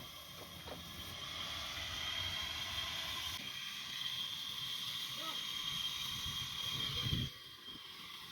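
Sawmill machinery running steadily with a high, even whine. About seven seconds in there is a short thud, and the running noise then drops quieter.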